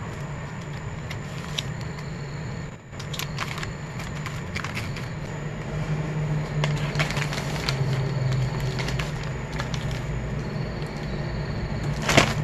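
Plastic poly mailer bags rustling and crinkling as they are handled, in scattered short crackles, with the loudest rustle near the end, over a steady low rumble.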